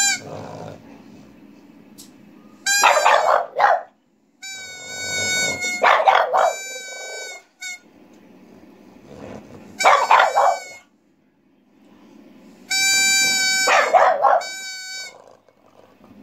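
A toy pipe blown in four spells of steady, high-pitched notes, with a French bulldog barking along to the tune.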